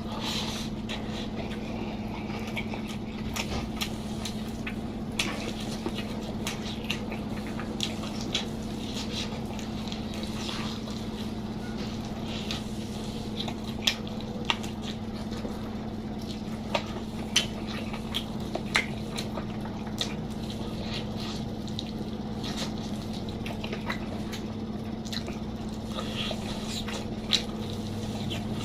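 Close-miked eating: wet chewing and mouth smacking with irregular sharp clicks, over a steady low hum.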